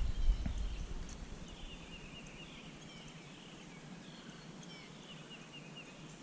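A few low knocks in the first half-second, then quiet with a bird chirping faintly in a quick series of short high notes.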